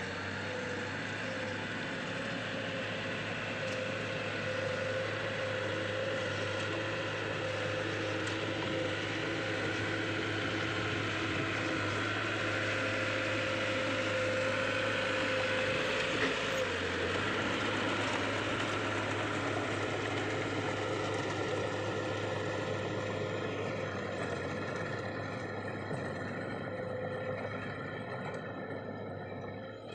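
Heavy diesel machinery engine running steadily, from a bulldozer or dump truck, with a steady low hum. It grows a little louder toward the middle and eases off near the end.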